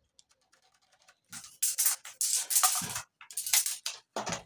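Handling noise from wooden pallet planks and a tape measure on a concrete floor. Faint ticks for about the first second, then loud scraping and rattling in three bursts, the longest first.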